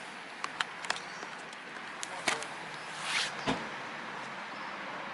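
A few scattered light clicks and knocks over a steady background hiss, typical of the camera being handled as it is passed over.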